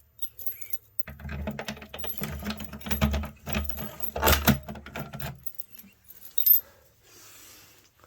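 A bunch of keys jangling and clicking against metal for about four seconds, followed by a single sharp click.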